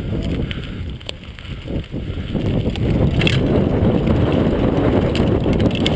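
Mountain bike ride noise from a rider-mounted GoPro: wind buffeting the microphone and tyres rumbling over a dirt trail at speed, with a few sharp clicks and rattles from the bike.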